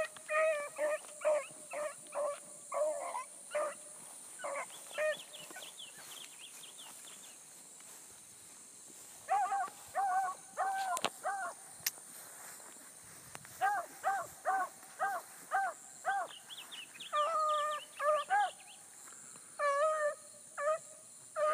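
Pack of bluetick coonhounds giving voice as they run a rabbit: quick runs of short barks at a few different pitches, with a lull in the middle before they pick up again.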